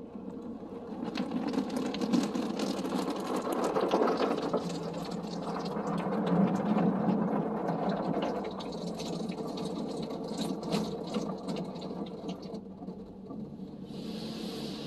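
High-pressure water jets of a touchless car wash spattering on the car's windshield and body, heard from inside the car: a dense rattling patter over a steady low hum, easing off late on. About a second before the end a steady rushing hiss begins.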